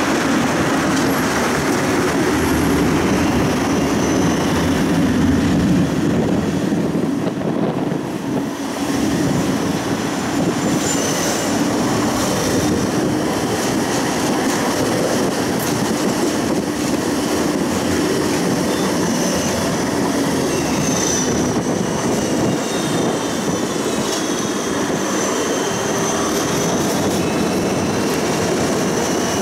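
Siemens Combino low-floor tram running along street track, heard from inside the car: a steady rumble of wheels and running gear. Thin high-pitched tones come and go over it in the second half.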